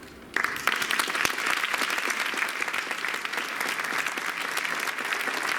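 Audience applauding: the clapping breaks out suddenly just after the start and carries on steadily.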